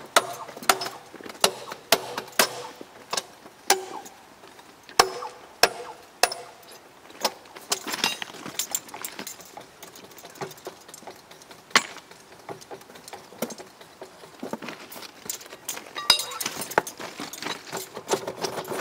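Irregular sharp metallic clinks and clanks, some ringing briefly, as a metal clamp fixture is fitted and adjusted on the rail ends before a thermite weld.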